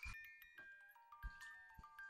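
Soft background music: a light melody of bell-like, glockenspiel-style notes stepping up and down, with a few dull low thumps, the strongest a little past the middle.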